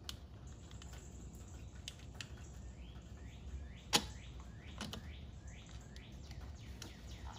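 Light, scattered clicks and taps of metal and plastic parts being handled as nuts are hand-threaded onto a generator's air box, with one sharper click about four seconds in. A bird chirps repeatedly in the background through the second half.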